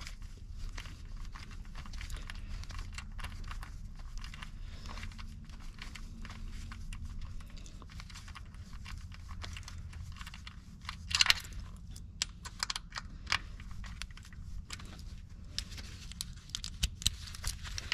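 Gloved fingers threading in and turning the bolts of an aluminum coolant flange on an engine's cylinder head: small metallic clicks and glove rustling over a steady low hum, with a brief louder clatter a little past halfway.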